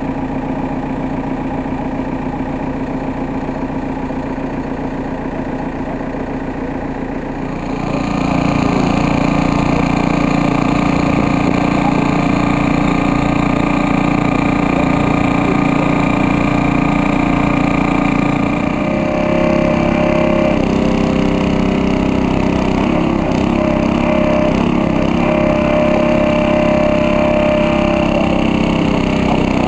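Small engine of a portable hydraulic rescue-tool power unit running steadily; it gets louder about eight seconds in, and its pitch shifts a little past halfway.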